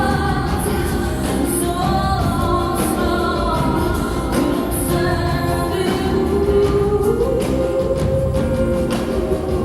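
Live band music with a woman singing. A long sung note rises and is held from about six seconds in.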